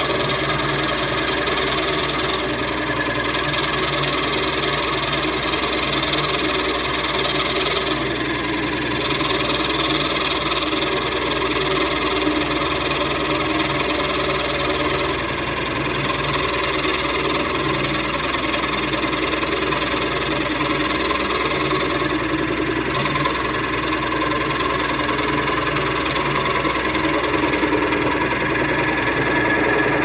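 Homemade drill press driven by a washing-machine motor, running steadily as a 32 mm spade bit bores into a block of wood. The sound eases briefly about four times.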